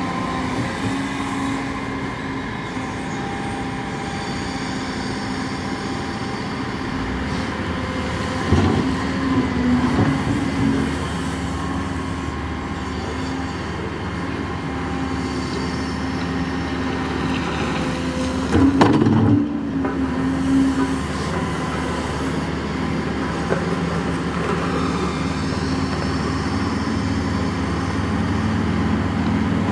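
Caterpillar M322F wheeled excavator's diesel engine running steadily while the machine works its hydraulics, with two louder knocks, about 8 seconds in and again about 19 seconds in.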